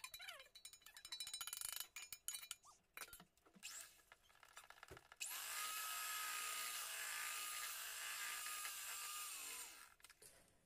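Electric hand mixer switched on about five seconds in, running steadily with a thin whine for about four and a half seconds as its beaters work a stiff cake batter, then winding down. Before it, faint scraping and clinks as flour is tipped from a steel plate into the bowl.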